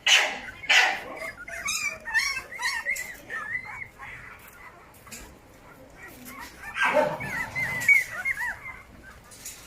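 Dogs barking twice at the start, then high, wavering whines and whimpers. A louder bout of whining comes about seven seconds in.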